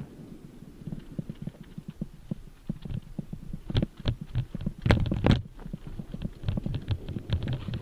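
Mountain bike rattling and knocking as it jolts down a bumpy dirt singletrack, heard from a helmet-mounted camera. A quick, uneven run of clatter goes on throughout, with a burst of harder knocks about four to five and a half seconds in.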